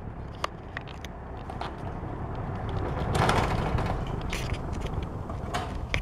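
Windsor box fan running: a steady low hum with rushing air, which swells for a moment about halfway through. A few light clicks and knocks sound over it, mostly in the first two seconds.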